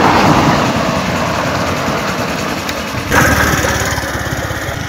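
A two-wheeler's small engine running, with fast even firing pulses. It gets louder about three seconds in.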